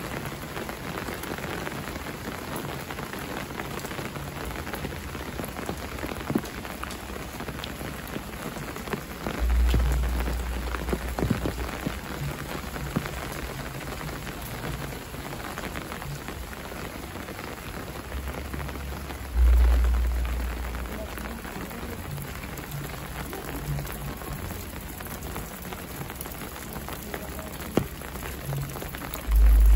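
Steady rain falling on a wet paved lane and roadside plants, with scattered drips. Three times, about ten seconds apart, a deep low rumble comes in suddenly and fades over a few seconds.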